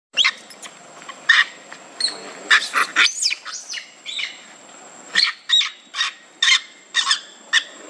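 Baby macaque giving a string of short, shrill squeals and screams, a few per second, typical of a young monkey in distress after being pushed away by its mother.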